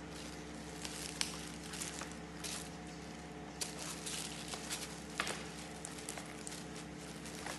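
A backpack and its clear plastic packaging bag being handled, giving irregular rustling and crinkling with a few sharp clicks, over a steady low background hum.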